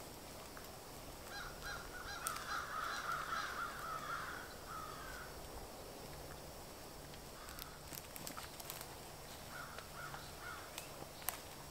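Birds calling in a pine forest: a cluster of repeated calls starting about a second in and lasting a few seconds, with a few shorter calls near the end. Sharp clicks of footsteps and twigs on the forest floor are scattered through.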